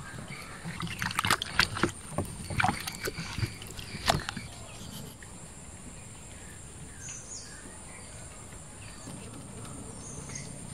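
Green mangoes handled and dropped into a metal bowl of water: a run of knocks and splashes over the first four seconds, the last one the loudest. After that only a steady high background whine remains, with two short chirps.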